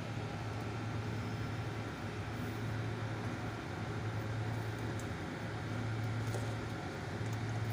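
Steady hum of a running machine, an electric motor and fan with a low drone under an even airy hiss, with a few faint ticks near the end.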